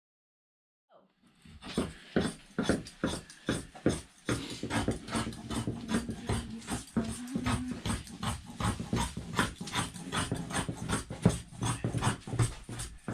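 Scissors cutting through fiberglass cloth laid over foam core: a quick, uneven run of crunching snips, several a second.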